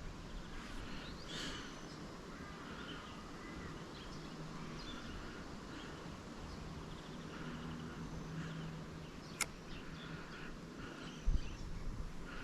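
Birds calling and chirping in the background of a riverbank, with one sharp click a little past nine seconds in.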